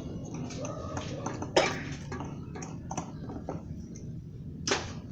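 Hand tools clinking and knocking against metal engine parts during timing belt work: scattered clicks, with two louder knocks about a second and a half in and near the end.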